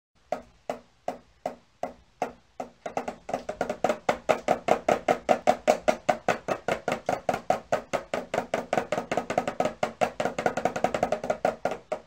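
Small toy drum beaten steadily with a toy mallet, about three beats a second at first, then about twice as fast and louder from some three seconds in, each hit ringing briefly.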